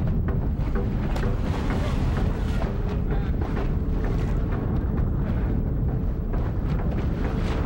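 Wind buffeting the microphone over the steady hum of a boat's motor on open water.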